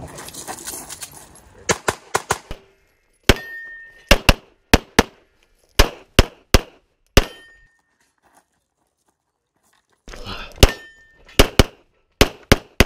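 CZ Shadow 2 pistol fired rapidly in strings of two to four shots, with a pause of about two seconds before a second run of shots near the end. A short ringing tone trails a few of the shots.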